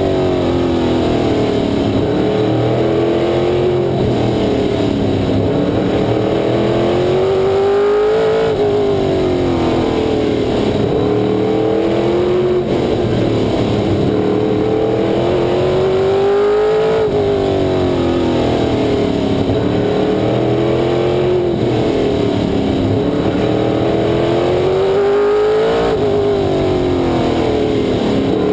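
Race car engine heard onboard at racing speed, its revs rising and falling repeatedly as it accelerates and lifts through the figure-8 lap. Each climb to a peak comes about every eight to nine seconds.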